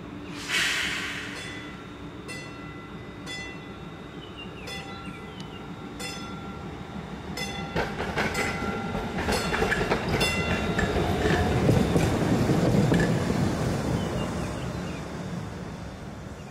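PCC streetcar passing on the track: a loud ringing sound about half a second in, then sharp ringing strikes about once a second. The running rumble of the car's wheels on the rails grows louder, peaks about three quarters of the way through, and fades away.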